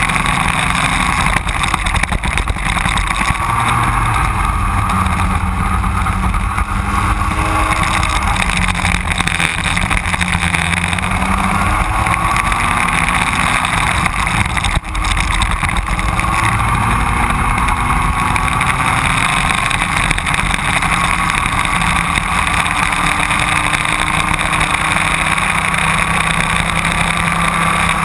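Racing kart engine running at full race pace, its revs climbing and falling again and again as the kart laps the track.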